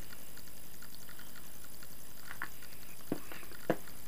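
A few sharp plastic clicks as a smartphone is pried out of its snap-in plastic case, over a steady faint hiss.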